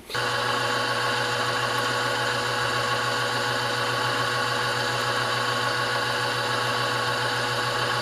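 Drill press starting up right at the outset, then running steadily with an even hum while an end mill cuts screw-head recesses in a steel pocket clip.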